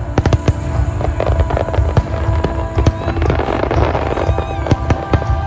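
Aerial fireworks display: many sharp bangs and crackles in quick succession, with music playing underneath.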